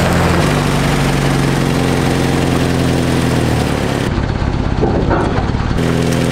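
Small pickup truck's engine running steadily at low speed as the truck pulls up, then idling.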